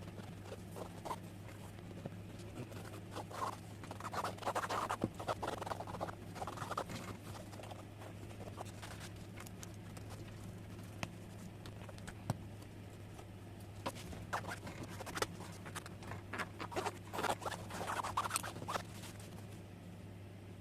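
Two spells of quick, scratchy rubbing and rustling, separated by a few sharp clicks, over a steady low hum.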